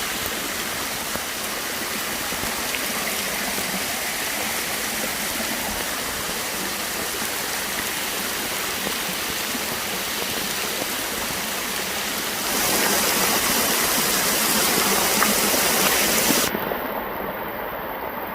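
A steady rush of water, louder for a few seconds about two-thirds through, then turning suddenly duller near the end.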